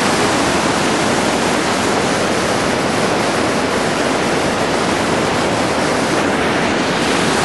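Waterfall rushing, a loud, steady roar of falling water.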